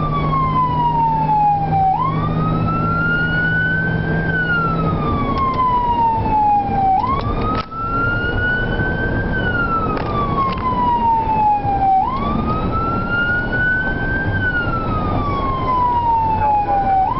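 Emergency vehicle siren wailing, heard from inside the responding vehicle's cab: the pitch sweeps up and then falls slowly, over and over, about every five seconds. Steady engine and road noise runs underneath.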